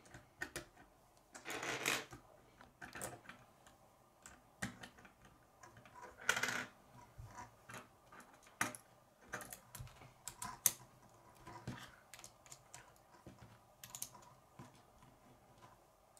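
Plastic K'nex rods and connectors clicking and snapping together as they are handled, in irregular sharp clicks, with two longer rustles of pieces about two seconds in and around six seconds.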